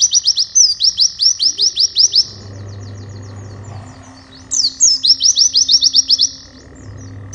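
A white-eye (pleci) singing fast runs of sharp sweeping chirps, about eight a second. There are two runs with a pause of about two seconds between them. This is the rapid burst song, called 'nembak', that pleci keepers play as tutor song to caged birds.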